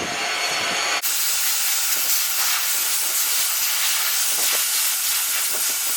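Dog grooming dryer blowing a steady, loud rush of air, growing fuller about a second in.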